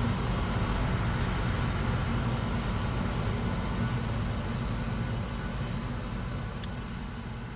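Cabin noise of a Cirrus SF50 Vision Jet on the ground: the steady rumble and faint whine of its single Williams FJ33 turbofan, with a couple of faint clicks. It fades out near the end.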